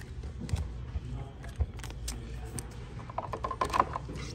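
Topps Chrome trading cards being handled and flipped through in the hand: a series of short clicks, several in quick succession near the end.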